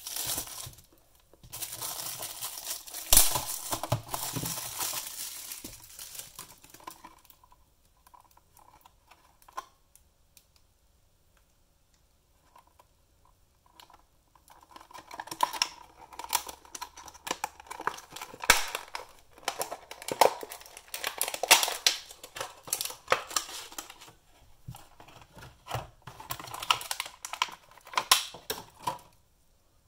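Plastic packaging crinkling and crackling as a small battery box is unwrapped and opened, with a sharp click early on. There is a quiet pause in the middle with a few faint clicks, then a longer run of dense crackling and clicking as the box is opened and the battery is taken out.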